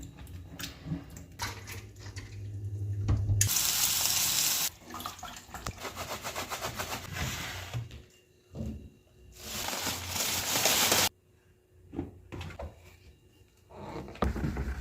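Water running from a tap in two short bursts, with small clicks and knocks of handling in between.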